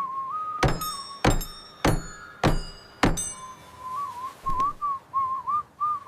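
A person whistling a wavering tune, with five sharp knocks about every 0.6 s in the first half, each leaving a short metallic ring.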